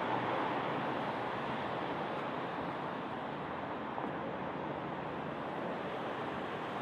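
Road traffic on a town street: cars driving past, a continuous rush of engine and tyre noise, a little louder at first as a car passes close, then easing slightly.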